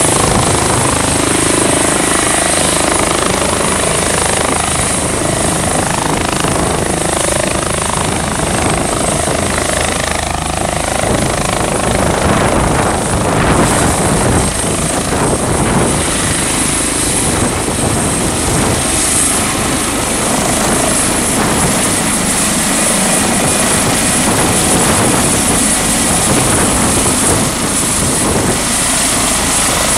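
Airbus H145 (EC145 T2) twin-engine rescue helicopter hovering low, its turbines and rotors running loud and steady, with a steady high whine over the rotor noise.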